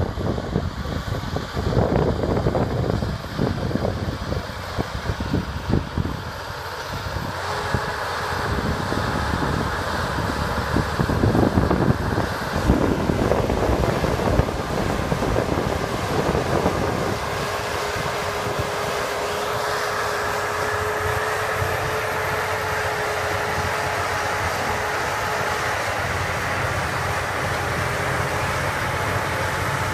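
Diesel engines of a Cat bulldozer pushing a logging truck, running under load. Wind gusts buffet the microphone for about the first half. After that the machinery settles into a steady, even running sound with a thin steady tone.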